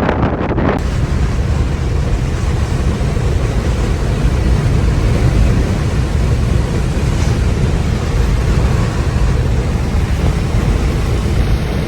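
Car driving at speed: a steady low rumble of road and wind noise.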